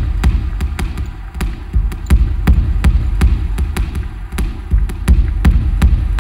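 Minimal electronic music built from sharp, dry clicks several times a second over deep bass pulses.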